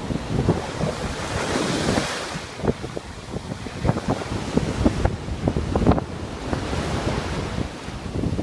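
Ocean surf washing up the beach, with one wave surging in and hissing loudest about two seconds in, and wind buffeting the microphone in short gusts throughout.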